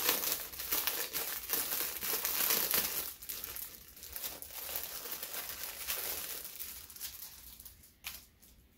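Clear plastic poly bag crinkling as it is handled and a folded t-shirt is worked out of it, loudest in the first few seconds and thinning out near the end.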